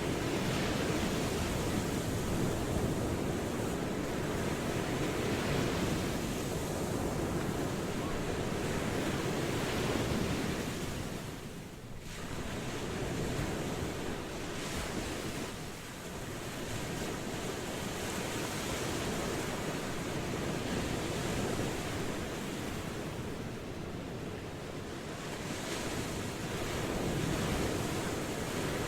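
Ocean waves washing onto a shore, a steady rush that swells and ebbs over several seconds, with a brief lull about twelve seconds in.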